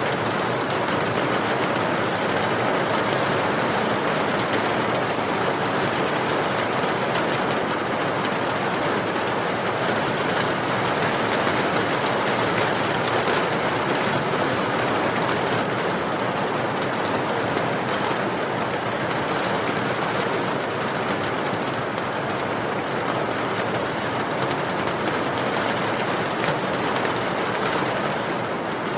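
Steady rain mixed with a wood fire crackling: a dense, even hiss dotted with small pops.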